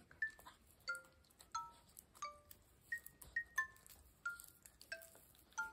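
Wind chime tinkling: single bright chime notes at scattered pitches, each ringing briefly, about two a second.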